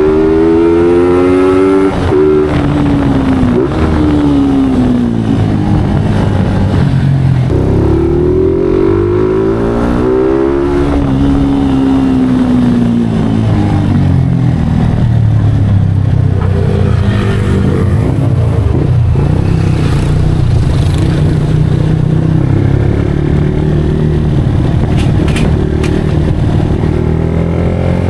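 Yamaha Sniper 150 single-cylinder four-stroke motorcycle engine, tuned super stock with an open throttle body, running loud with its revs rising and falling in long sweeps. Around the middle it settles to a lower, steadier note, and near the end it climbs again.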